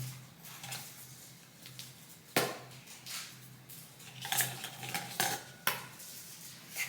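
Small hard objects, toys being handled, knocking and clattering a few times; the loudest knock comes about two and a half seconds in. A faint steady low hum lies underneath.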